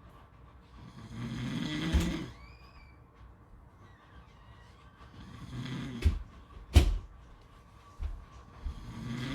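Snoring at a slow pace: a long snore about a second in, another around five to six seconds, and a third starting near the end. A couple of sharp clicks come between the second and third snores.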